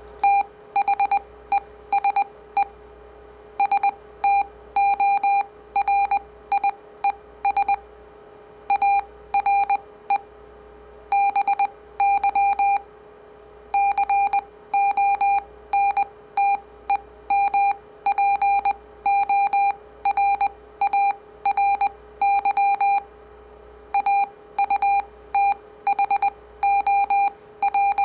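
Morse code (CW) at 15 words per minute, played through a speaker as a square-wave audio tone keyed on and off in dots and dashes, with a steady faint hum underneath.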